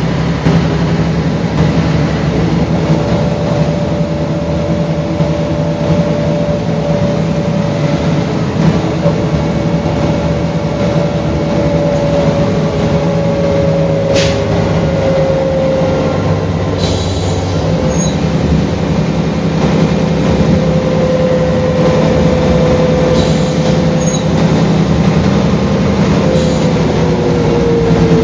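Mercedes-Benz O405GN articulated bus running, a steady low drone with a high whine that holds, then slowly falls in pitch from about halfway and drops further near the end. A single sharp click sounds about halfway.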